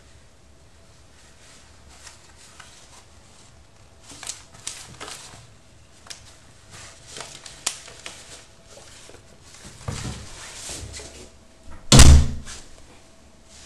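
Chartreux cat scrabbling after a mouse on a tiled floor: scattered light taps and scuffs, more of them from about four seconds in, and one loud thump near the end.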